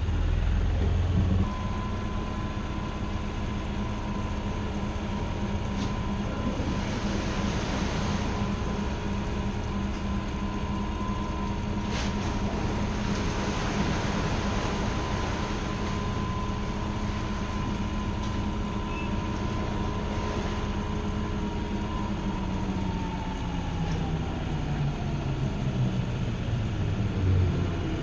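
Strépy-Thieu boat lift machinery running: a steady hum with a high whine that comes in about a second and a half in, both falling in pitch over the last six seconds as the machinery slows down.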